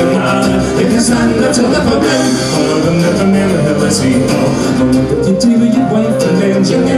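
Scottish folk band playing live: an instrumental passage of the ballad, a melody line over chords, with sharp percussion strikes at intervals.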